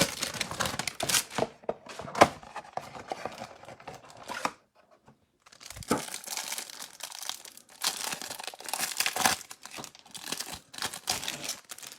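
A trading-card hanger box being torn open and its cardboard and wrapping crinkled by hand, in two stretches of rough tearing and rustling with a short pause and a single click between them.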